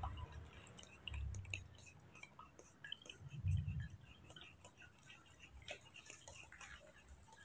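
Metal spoon scraping and clicking against a plastic strainer as orange pulp is pressed to strain the juice: faint scattered small clicks and scrapes, with two dull low thumps, about a second in and about three and a half seconds in.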